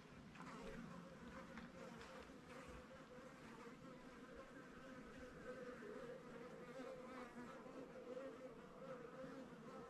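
Faint buzzing of a flying insect, a steady hum that wavers slightly in pitch.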